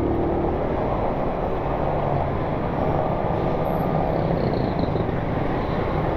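Honda Pop 100 motorcycle's small single-cylinder engine running steadily as it rides slowly through dense traffic, with the engines of other motorcycles and cars close around it.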